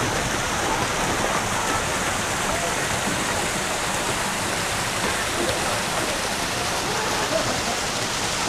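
Steady rushing background noise with faint, scattered voices of children and adults playing in a busy park playground.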